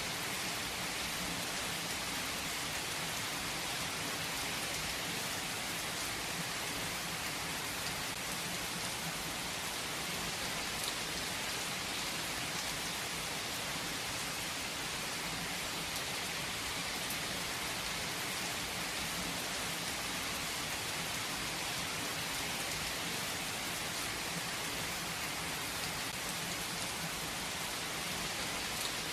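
Steady rain falling and pattering on surfaces, a constant hiss with occasional distinct drop ticks.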